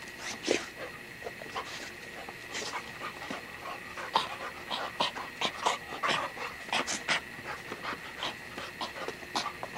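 Pit bull dog panting, with scattered short clicks and scuffs at irregular moments.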